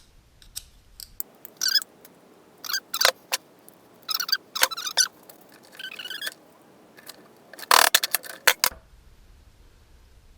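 Small metal pieces and hand tools being handled on a workbench: scattered clicks, scrapes and light metallic clinks in several short bursts, the loudest burst near the end.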